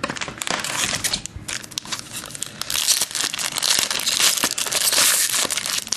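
Shiny foil wrapper of a 2007 Razor Poker trading card pack being torn open and crinkled by hand: dense crackling with many sharp snaps, louder in the second half.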